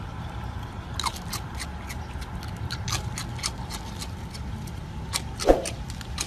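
A raccoon's claws clicking and scraping on concrete as it reaches for a treat held out by hand, over a low steady rumble. There is one short squeak about five and a half seconds in.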